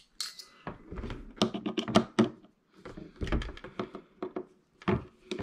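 Irregular small clicks, taps and knocks of a screwdriver and steel screws being handled against a metal airsoft gearbox shell as its screws are taken out.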